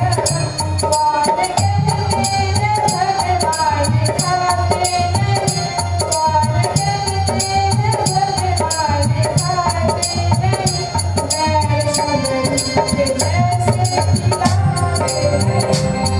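Music: a song with a singing voice over a steady drum beat and percussion.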